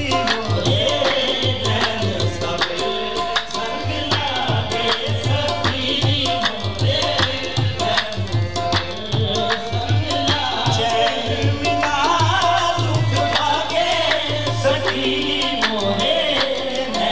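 Live music: tabla playing a steady rhythm of strokes under sustained instrumental notes, with a man singing into a microphone.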